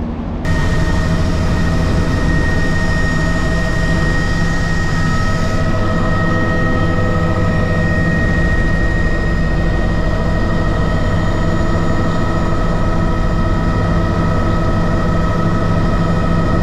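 Small propeller aircraft's engines droning steadily, several constant tones over a deep rumble, cutting in abruptly just after the start.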